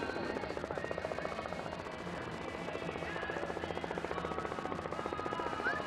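An engine running with a rapid, even pulse.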